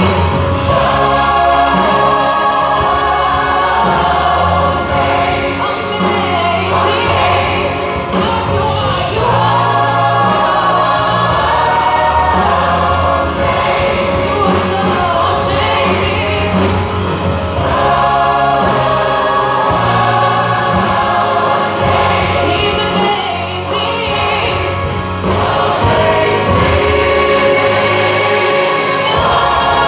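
Large mixed choir of men and women singing a Christian worship song in full voice, with instrumental accompaniment and a steady bass underneath.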